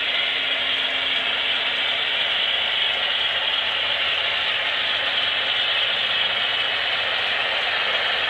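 HO-scale model train running: a steady mechanical whirring and clatter from the Broadway Limited Centipede locomotives' motors and gears and the wheels of a long string of coal cars on the track.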